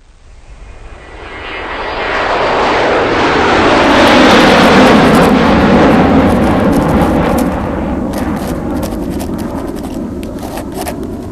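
An airplane flying over, its rushing noise swelling to a peak about four to six seconds in and then slowly fading. A few clicks come near the end.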